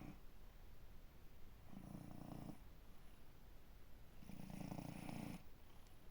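Elderly cat snoring in deep sleep: two quiet rattling snores, each about a second long and about two and a half seconds apart, one per breath.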